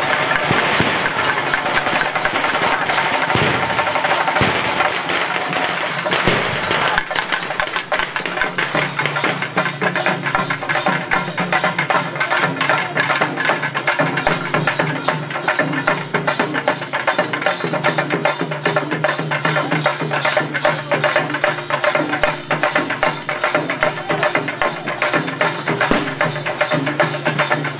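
Loud percussion-led festival music: fast, steady drumming, with a held low drone that joins about nine seconds in.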